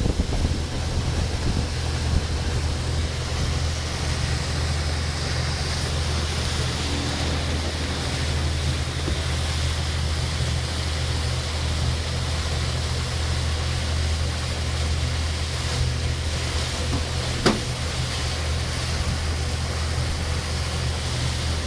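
Boat engine running at a steady cruising speed, a constant low hum, with wind and water rushing past the hull. There is one sharp knock about seventeen seconds in.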